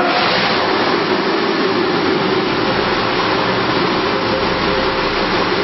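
Diesel engine of a chairlift's auxiliary drive unit running loudly and steadily in the drive room, during a test run after the lift's overhaul.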